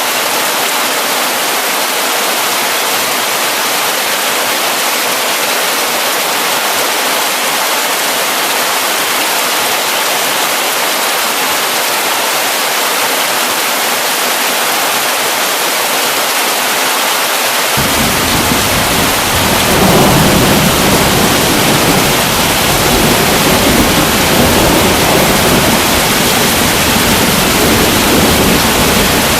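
Heavy rain falling steadily as a dense hiss. About two-thirds of the way through, a low rumble of thunder comes in suddenly and swells a little, then rolls on under the rain.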